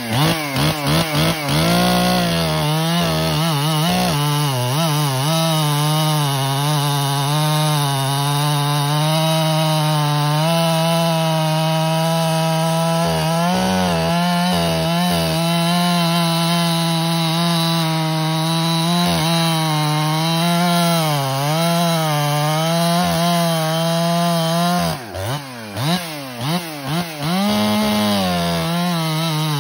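Ported Husqvarna 365 Special two-stroke chainsaw cutting through a large log at full throttle, its engine note holding steady with slight dips under load for over twenty seconds. As the cut finishes, the engine drops and is blipped a few times, then goes back to full throttle near the end.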